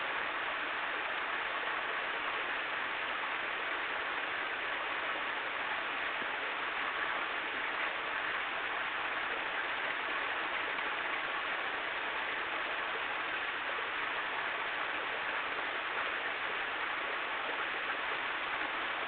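A steady, unbroken rushing noise that stays the same throughout.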